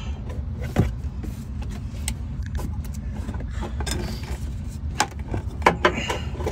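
Scattered clicks and knocks from hand-working a rubber motor mount into its bracket on a gas Club Car golf cart, over a steady low rumble.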